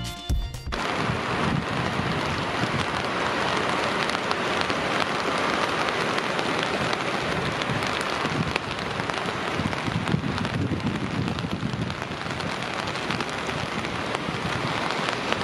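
Steady rush of the river Wiese in flood, swollen and fast-flowing after days of rain. Background music cuts off in the first second.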